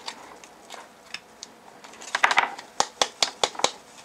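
Hard plastic bike-light battery-pack housing being handled and worked apart: faint scrapes and clicks, then a quick run of sharp plastic clicks and taps in the second half.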